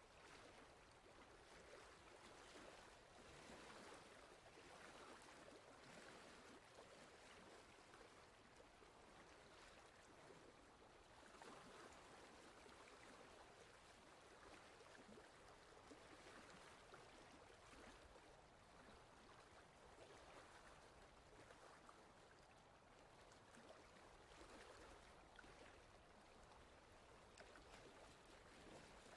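Faint, steady rushing noise, without speech or music.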